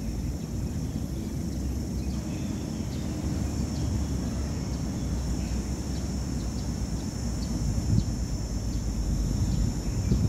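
Outdoor ambience: a steady low rumble under a steady high hiss, with faint short bird chirps scattered through and a couple of soft thumps, one about eight seconds in and one at the end.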